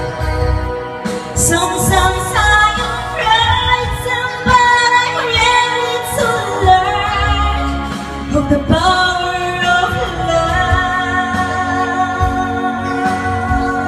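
A woman singing a song into a karaoke microphone over the backing track.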